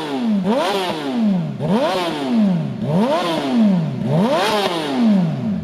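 Yamaha R6 inline-four engine through a Hurricane aftermarket exhaust tip, blipped four times in a row at about one rev every 1.3 seconds, each a quick sharp rise in pitch falling back toward idle.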